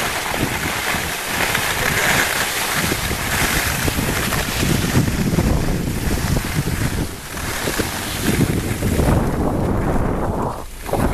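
Wind buffeting the microphone during a downhill ski run, mixed with the hiss of skis sliding over snow; the noise dips briefly near the end.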